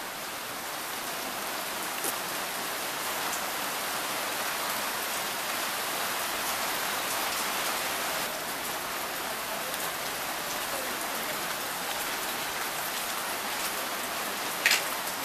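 Steady rain falling, an even hiss with no pauses, and a short sharp click near the end.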